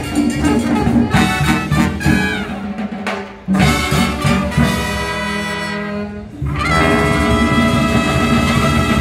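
Marching band playing Latin-style music, led by trumpets and trombones over bass and drums. About three seconds in the playing drops off briefly, then the band holds a long chord before coming back in at full volume at about six and a half seconds.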